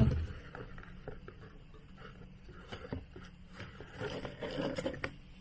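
Hand rummaging inside a cardboard box, with light scraping, rustling and scattered soft taps on the cardboard.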